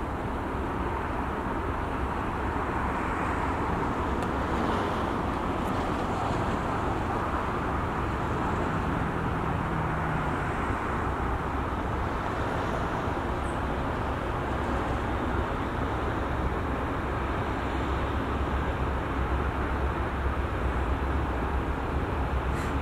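Steady outdoor rumble of road traffic and wind. A low rumble builds near the end as a diesel train approaches from a distance.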